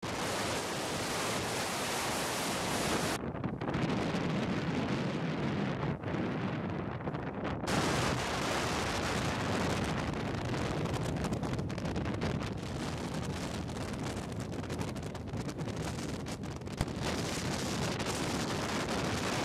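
Strong wind buffeting the microphone on a cruise boat, a steady rushing noise with no pauses. The upper hiss drops away about three seconds in and comes back near eight seconds.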